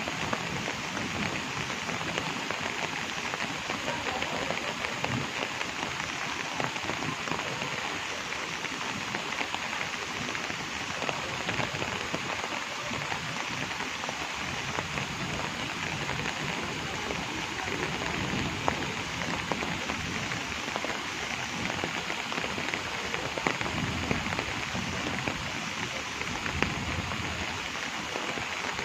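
Steady rain falling, a dense patter of drops that keeps an even level throughout.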